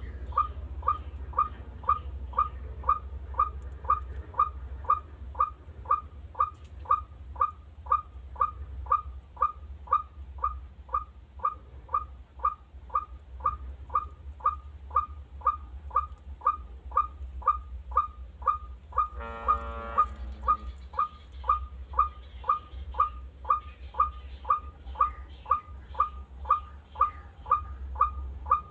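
White-breasted waterhen calling, one short note repeated over and over at a very even pace, just under two a second. About two-thirds of the way through, a fuller, buzzier call sounds for about a second over it, and a low rumble runs underneath.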